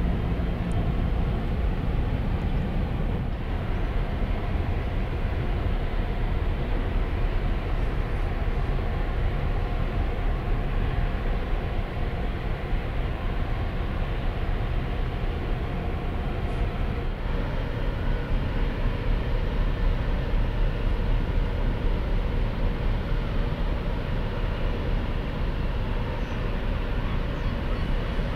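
Steady low rumble of the ro-pax ferry Mega Express, its engines and machinery droning evenly as the ship moves in close.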